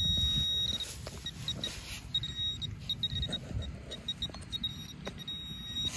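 Metal detector beeping in quick high-pitched pulses that run together into a steady tone, breaking off about a second in and starting again in short bursts a couple of seconds later and near the end, as it homes in on a buried target. Low rustling and a few knocks from handling and digging lie under it.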